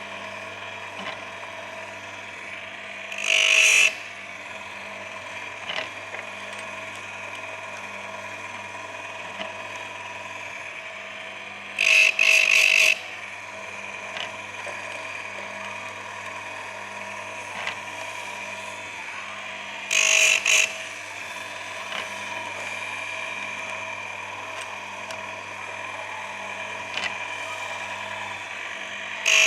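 Electric chainsaw sharpener motor running with a steady whine. Its grinding wheel is brought down onto chain teeth in short harsh bursts about every eight seconds: single grinds, plus once a quick run of three touches.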